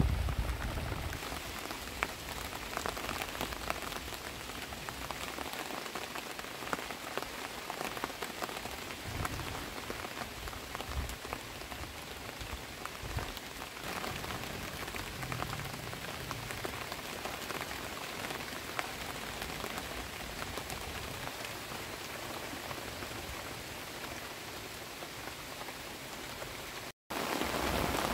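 Steady rain falling on a thatched roof and the surrounding trees, a dense patter of many small drop taps. It cuts out for an instant near the end and comes back a little louder.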